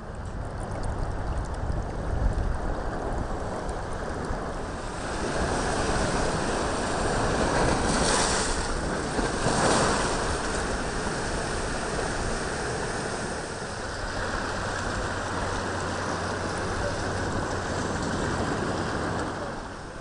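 Ocean surf washing into rocky tide pools, a steady rushing that swells for several seconds, loudest about eight and ten seconds in, then settles back.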